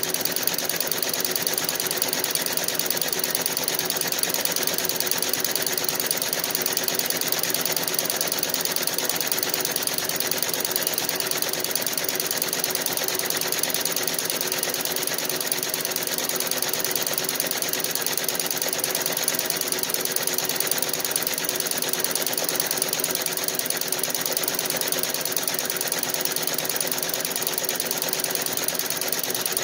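Feiyue nine-needle embroidery machine running steadily, its needles stitching with a fast, even mechanical clatter.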